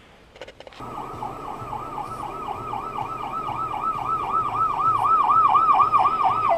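Ambulance siren in a fast up-and-down yelp, about three sweeps a second, starting about a second in and growing louder as the ambulance approaches.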